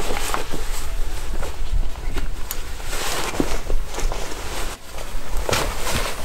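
A camera backpack being swung onto the shoulders, then footsteps scraping and knocking over loose slate rubble, over a low rumble.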